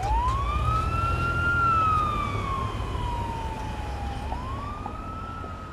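A siren wailing over a low rumble: its pitch rises, sinks slowly, and rises again about four seconds in.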